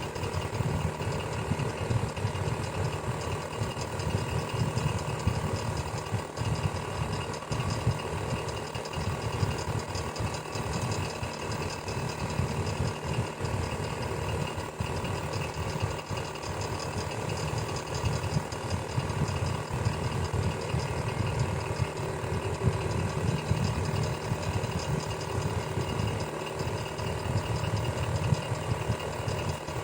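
Electric fan running steadily: a low, rapidly fluttering whir from the blades with a steady motor hum over it.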